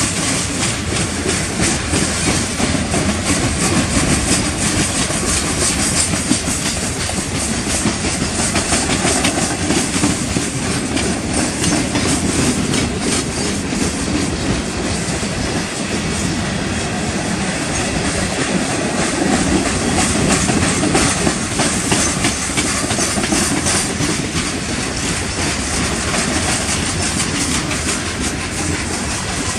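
Loaded coal hopper cars of a freight train rolling past at steady speed. The steel wheels rumble and clack continuously on the rails.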